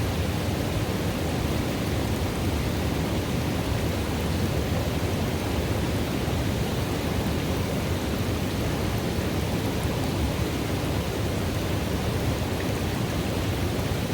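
River water running steadily at a pool: a constant, even wash of water noise, heavier in the low end, with no breaks or single events.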